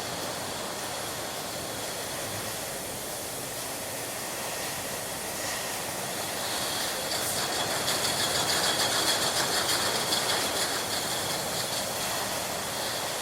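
Milk bottling line machinery running, a steady mechanical hiss with a thin high whine. About halfway in it grows louder, with fast rattling.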